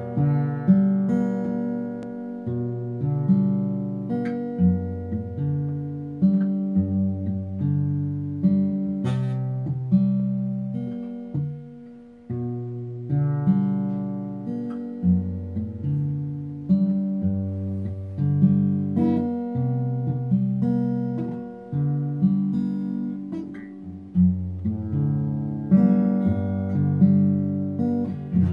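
Acoustic guitar played solo: a repeating chord progression picked and strummed, each chord ringing on before the next, with a brief pause about twelve seconds in.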